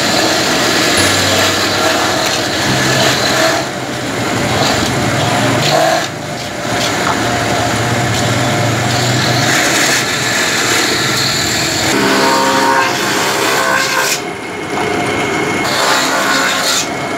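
Electric coconut grater machine running, a steady motor hum under a rasping, scraping noise of coconut being grated, with a few brief drops in level.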